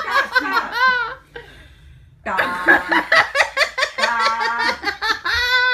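A person laughing hard in two bouts. The first ends about a second in; the second starts about two seconds in and ends in a long drawn-out note.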